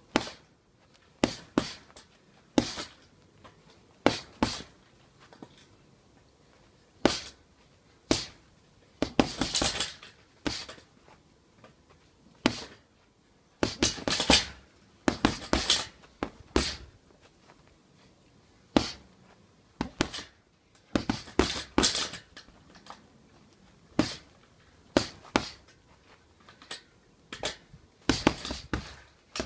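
Boxing gloves punching a hanging heavy bag: sharp blows, some single and some in quick flurries of several, with pauses of a second or two between them.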